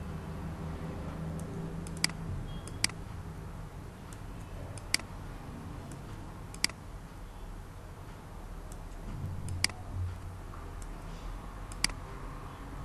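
Computer mouse clicking six times at uneven intervals while layers are dragged into place, over a low steady background hum.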